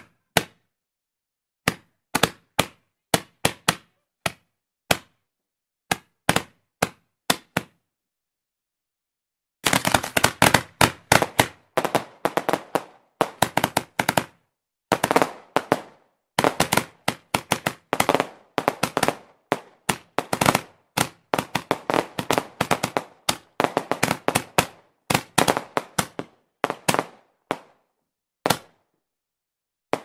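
Roman candles firing, a string of sharp pops. They come singly at first, a couple a second, then stop briefly. About ten seconds in they return as fast, overlapping volleys, which thin out to a few last pops near the end.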